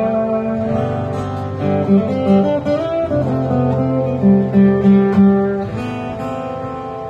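Acoustic guitar music, plucked and strummed notes that change pitch.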